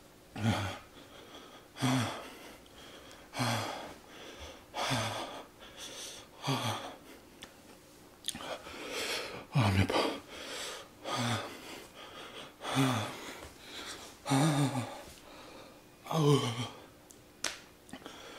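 A man breathing hard in short, sharp, voiced exhales and gasps, one about every second and a half, from the burn of the Paqui One Chip Challenge chip's extreme chili heat.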